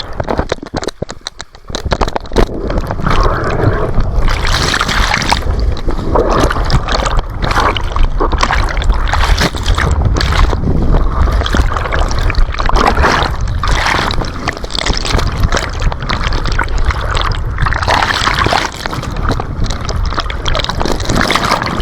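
Rushing, splashing water and heavy rumbling buffeting on an action camera carried down a water slide, loud and continuous, with surges of water noise.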